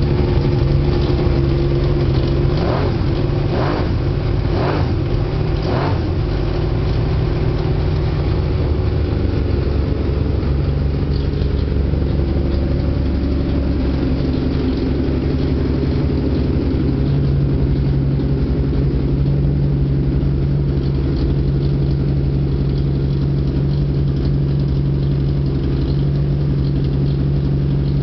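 V12 CBX motorcycle engine on Weber carburettors idling steadily. It is running on only ten cylinders: a leaking needle and seat in the centre Weber floods two of the lower cylinders. Four brief sharp sounds come a few seconds in.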